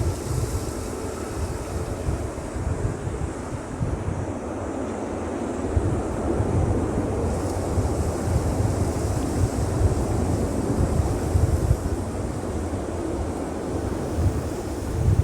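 Strong gusty wind buffeting the microphone: a low rumble that swells and eases in gusts, with no clear engine tone standing out.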